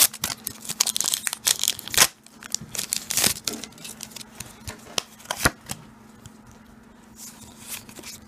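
A foil Pokémon TCG booster pack wrapper crinkling and tearing open by hand: a run of crackling strokes with a few sharp clicks, thinning after about three seconds into quieter handling of the cards.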